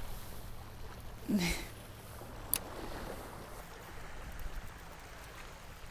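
Water lapping at the shore rocks with low wind noise, a brief sound about a second and a half in and one sharp click about two and a half seconds in.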